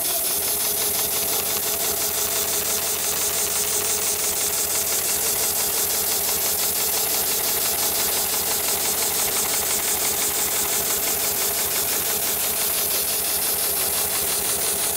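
Heavy-duty automated sole-stitching machine (7273CNC-S2S) running steadily, its needle mechanism stitching in a fast, even rhythm over a steady motor hum.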